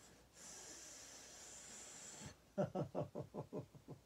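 A woman's long, deep breath in for about two seconds, then a quick run of about eight loud 'ha-ha' laughing pulses, each dropping in pitch: the breathe-in, laugh-out cycle of laughing yoga.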